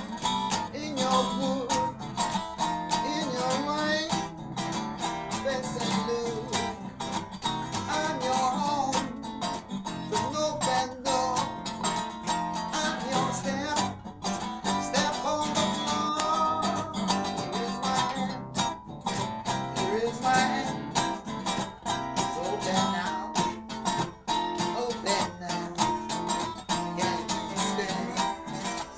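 A blues band playing a blues number, with guitar prominent and bending notes.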